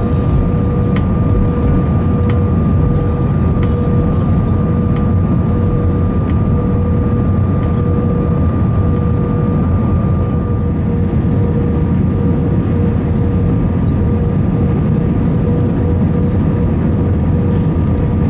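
Airbus A320 cabin noise at a window seat on final approach with flaps extended: a steady low roar of engines and airflow, with a constant hum of steady tones above it. A few faint ticks come through in the first half.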